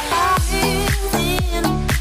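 Background dance music with a steady beat: deep kick drums that drop in pitch about twice a second, under a wavering melody.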